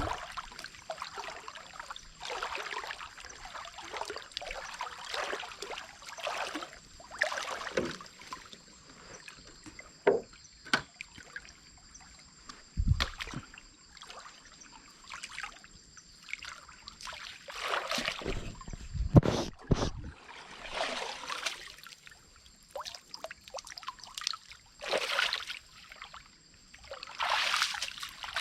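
Water splashing and sloshing in irregular bursts, with a few dull low thumps, around 13 and 19 seconds in.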